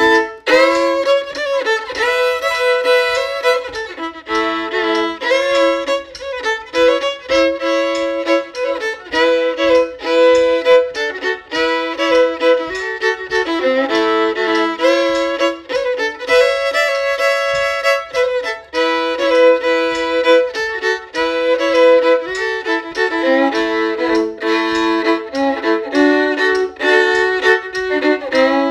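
Solo fiddle playing a simple A-major old-time/newgrass fiddle tune, a continuous run of quick bowed notes.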